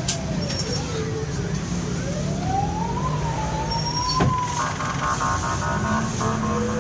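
City bus running, heard from inside: a steady low engine drone with a whine that dips and then rises in pitch about two seconds in. A rapid pulsed beeping joins in the second half.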